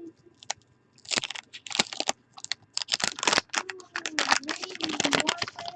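Cardboard trading cards being flipped through and laid down one after another while sorting for doubles: a quick, uneven run of clicks and slaps starting about a second in.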